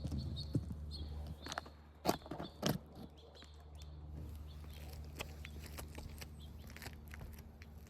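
Asphalt shingle being handled and set back into place on a roof: a few scraping clicks and taps, the loudest about two seconds in, over a steady low hum.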